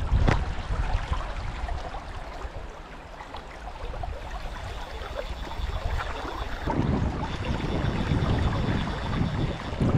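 Fast river current rushing over a riffled bar, with wind buffeting the microphone; the wind noise grows stronger after about seven seconds.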